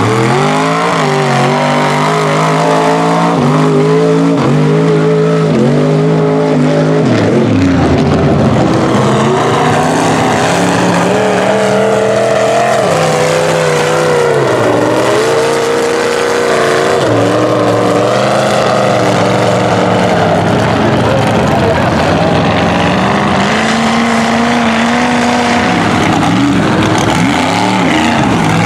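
Lifted mud trucks' engines revving hard, the pitch rising and falling again and again as the trucks plow through mud and water on oversized tires.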